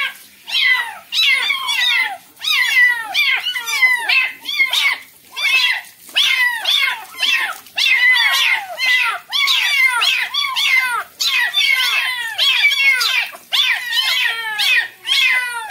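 Several young kittens meowing over and over, a rapid string of high-pitched calls about two a second that often overlap. They are crying in distress at being bathed under running water.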